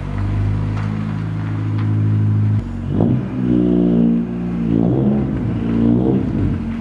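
Honda EG Civic hatchback's four-cylinder engine, breathing through a 4-2-1 header with no catalytic converter into a Megan Racing cat-back exhaust, running steadily, then blipped in several quick revs from about two and a half seconds in, each rising and falling back.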